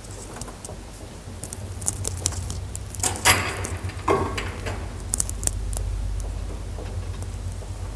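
Graham Brothers elevator in motion: a steady low hum from the drive sets in about a second and a half in. Several sharp clicks and clanks come between about two and five seconds in, the loudest near the middle.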